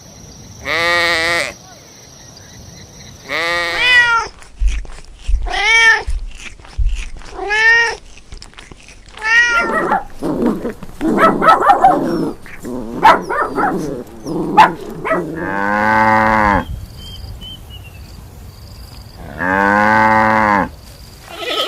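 Animal calls: five separate pitched calls of about a second each, then a jumble of overlapping calls, then two longer, lower drawn-out calls.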